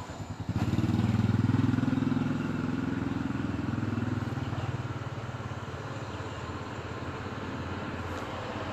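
A low, pulsing engine sound swells in about half a second in, is loudest for about two seconds, then slowly fades as it passes by.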